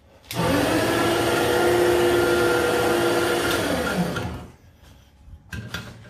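Electric winch motor running for about four seconds as it moves a chain-hung portable generator onto a cart, its whine rising in pitch as it starts and falling away as it stops.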